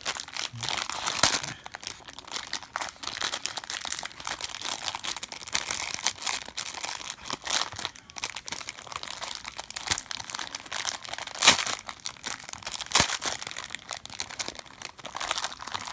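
Plastic blister pack being crinkled and torn open by hand, a stiff package that is hard to get into. Dense crackling runs throughout, with a few sharper cracks, the loudest about eleven and a half seconds in.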